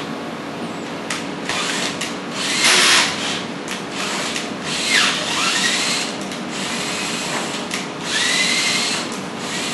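Cordless drill driving a tap into a metal ceiling mounting plate, cutting threads for the screws. It runs in short stop-start bursts, the motor's whine dipping and climbing again about five and eight seconds in.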